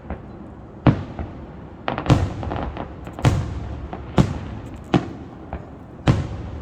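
Fireworks display with aerial shells going off in quick succession: about seven sharp booms, roughly one a second, with a rumble trailing after each.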